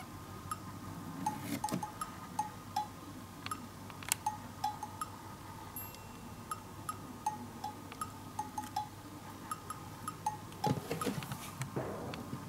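Light background music: a playful tune of short, plinking bell-like notes. A brief rustle about eleven seconds in.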